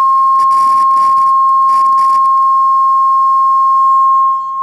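Steady 1 kHz sine test tone from a signal generator, played through the speakers of a 1965 Admiral solid-state stereo amplifier. Several short bursts of hiss come over the tone in the first couple of seconds.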